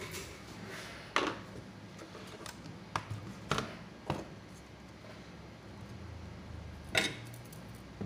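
Light taps and clatter of a laptop motherboard being handled and turned round on a silicone repair mat, with metal tweezers. There are about six sharp taps, the loudest about a second in and near the end, over a faint steady low hum.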